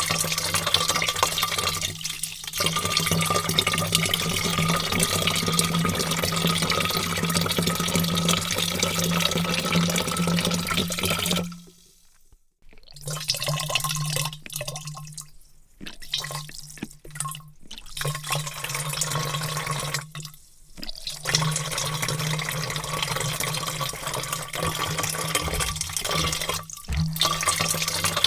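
A heavy stream of water pouring and splashing into a large vat, running steadily and breaking off briefly several times, longest for about a second about twelve seconds in.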